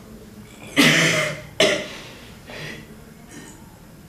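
A young man coughing hard while bent over: two forceful coughs about a second in, then a softer one.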